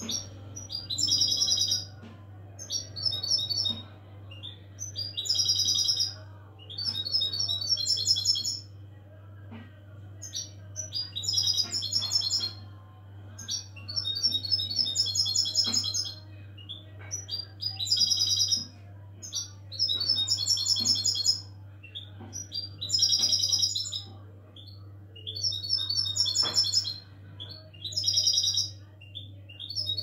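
European goldfinch singing: bright twittering song phrases, each a second or two long, repeated every couple of seconds, over a low steady hum.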